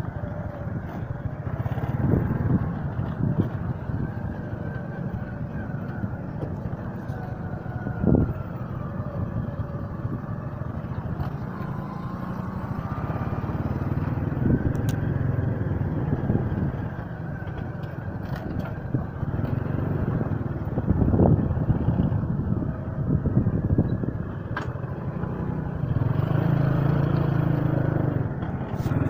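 Motorcycle engine running steadily while riding along a rough dirt track, its pitch rising and falling with the throttle.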